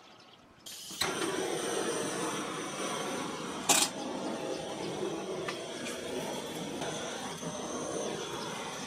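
Handheld propane torch burning with a steady hiss, starting about a second in, with one sharp click a few seconds later.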